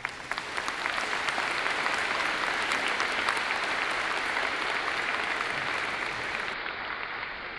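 Applause from a crowd of audience and children clapping hands, starting abruptly as a song ends and tapering off near the end.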